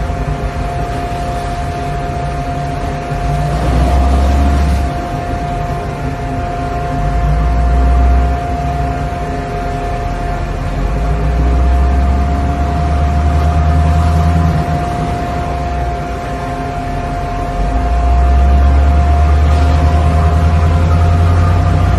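Pilot boat's engine running steadily as it holds alongside a ship's hull, with a steady whine and a low rumble that swells and fades every few seconds over a wash of noise.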